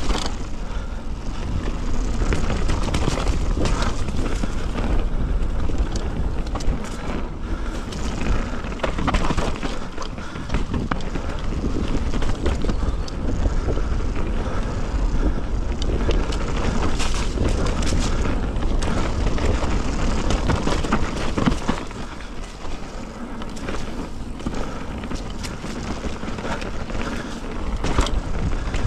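Merida One-Sixty full-suspension mountain bike descending a dirt trail: knobbly tyres rolling over dirt, leaves and stones, with frequent rattles and knocks from the bike over roots and rocks. Wind rumbles steadily on the chest-mounted microphone.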